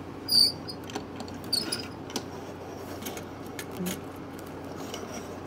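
Plastic LEGO train cars being handled and moved on a wooden tabletop: scattered light clicks and rubbing, with a couple of brief high squeaks, the loudest about half a second in.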